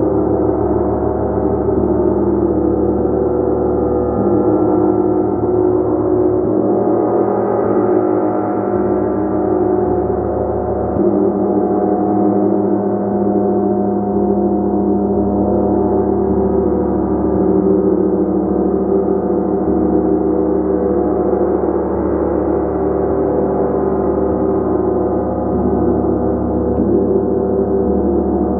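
Gong played continuously, a dense sustained wash of many overlapping tones that swells and eases slowly, with no single strike standing out.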